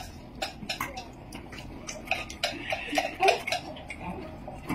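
Eating utensils clicking and tapping against bowls in quick, irregular ticks, with a louder knock a little past halfway.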